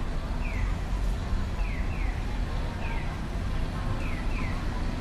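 Japanese audible pedestrian crossing signal chirping its electronic 'piyo-piyo' bird call: short falling chirps, alternating one and two, about once a second, meaning the walk light is on. Low street traffic rumble underneath.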